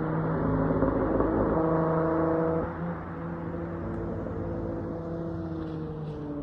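Dodge Charger SXT's V6 exhaust note through a Flowmaster Outlaw system, running at a steady engine speed, then dropping in level about two and a half seconds in and carrying on more quietly.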